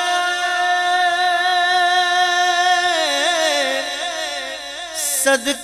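A man singing a naat (Urdu devotional song) into a microphone. He holds one long note with a slight waver, then winds through ornamented turns that drift downward, and breaks off briefly near the end.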